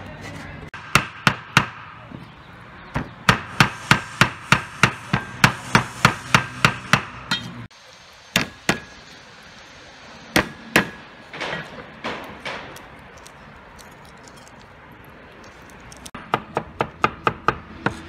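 Chinese cleaver chopping on a wooden chopping board: runs of fast chops, about four a second, broken by a few single strikes. Near the end it is mincing garlic.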